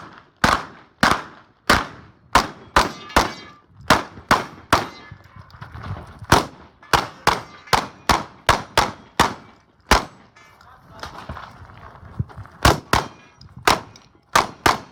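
Rapid shotgun fire during a stage, with steel targets clanging and ringing as they are hit. About ten shots come in the first five seconds and the string continues to about ten seconds in; after a pause of a couple of seconds, a few more shots follow near the end.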